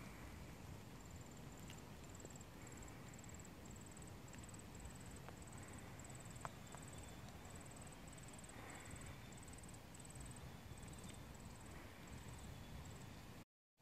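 Faint cricket chirping: short high-pitched trills repeating about twice a second over quiet outdoor background hiss, with a couple of small clicks.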